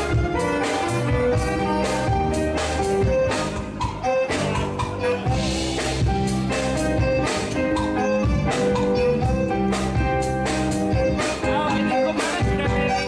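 A live band playing a jazzy tune, with held melody notes over drums.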